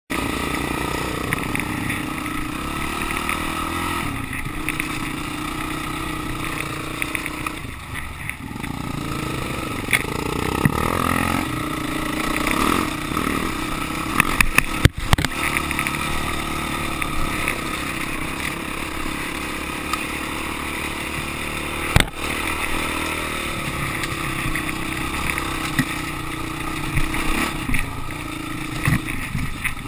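Dirt bike engine running under load on a steady uphill trail climb, its pitch rising and falling with the throttle, with clatter from the bike over rough ground. Two sharp knocks stand out, one about halfway through and one about two-thirds of the way in.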